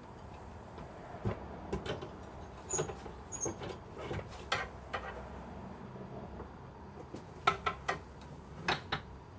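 Knocks and clunks of a leather-lung blacksmith's bellows, with wooden boards, and its iron stand as the bellows is handled and settled into the stand. They come in scattered groups, the loudest near the end.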